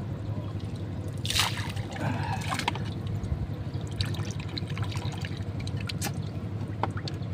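Water splashing and trickling from a plastic bowl dipped and tipped over the water, with two short splashes about a second and two seconds in, over a steady low hum.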